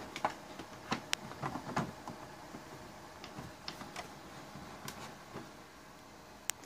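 Epson WF-2750 inkjet printer's mechanism clicking and ticking irregularly over a faint steady hum. The clicks come thickest at the start, and one sharp click falls near the end.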